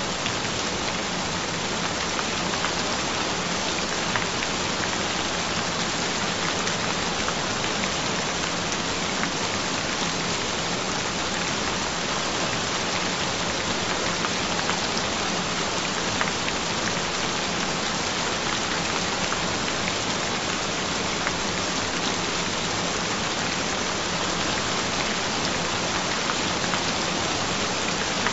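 Steady rain falling, an even hiss of many drops with no change in level, and a low steady tone underneath.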